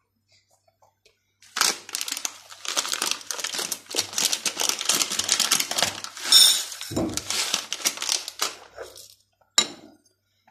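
Crinkling and rustling handling noise, dense with small crackles, starting about a second and a half in and running for about seven seconds, with a brief squeak near the middle and one sharp click near the end.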